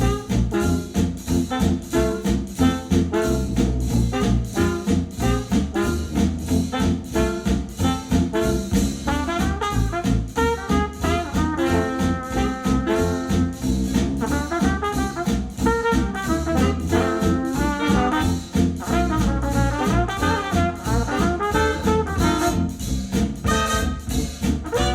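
Retro acoustic jazz instrumental with trumpet and trombone over a steady beat, played through a pair of Adam Audio A5X powered studio monitors.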